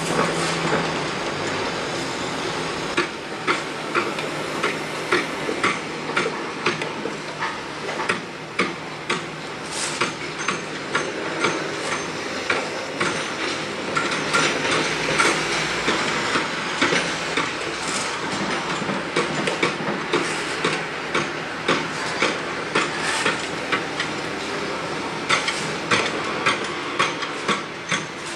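Building-site hammering: sharp, irregular blows about one to two a second over a steady background din of site machinery and traffic.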